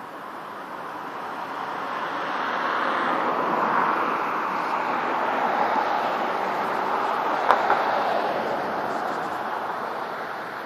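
A car passing: its tyre and road noise rises over about three seconds, then slowly fades away. A single sharp click about seven and a half seconds in.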